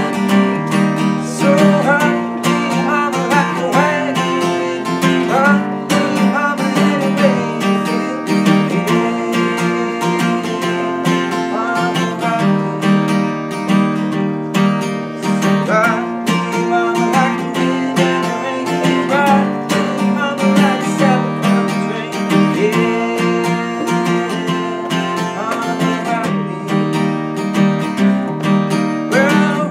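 Steel-string acoustic guitar strummed steadily, with a young man singing over it.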